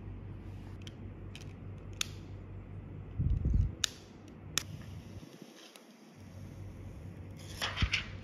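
Hands handling small electronic gadgets and their packaging: scattered sharp clicks and taps, a dull knock about three seconds in, and a short cluster of crackly taps near the end, over a steady low hum.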